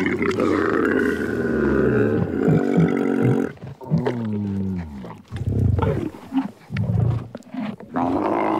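Camel calls: a long, loud call, then a falling groan about four seconds in, followed by a run of short low grunts, with another call starting near the end.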